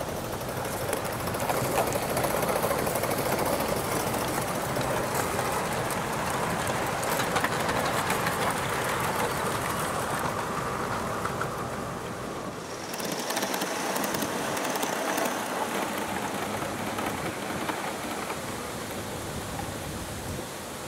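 Gauge 1 live-steam model train running past on garden track, its wheels and wagons clicking and rattling steadily over the rails. About two-thirds of the way through the sound drops and turns thinner, with a faint high hiss.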